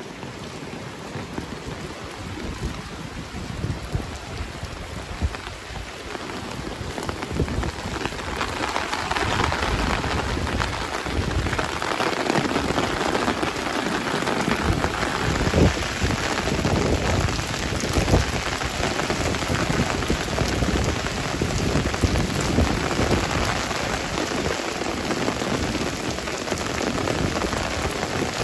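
Heavy rain falling on wet pavement: a steady hiss that grows louder about eight seconds in, with irregular low rumbling gusts underneath.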